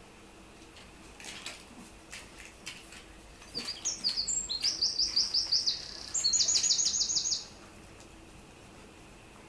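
A songbird singing one phrase: a run of repeated high notes, then a quick trill that stops abruptly. A few faint clicks come before it.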